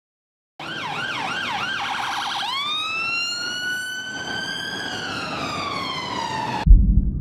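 Emergency vehicle siren: a fast warbling yelp about four times, then a wail that rises, holds and slowly falls before cutting off suddenly. A loud deep boom comes right at the end.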